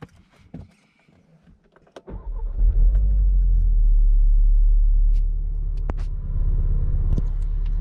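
Volkswagen Mk7 Golf R's 2.0-litre turbocharged four-cylinder engine starting about two seconds in, after a few clicks, running up loudly for a couple of seconds and then settling to a steady idle, heard from inside the cabin.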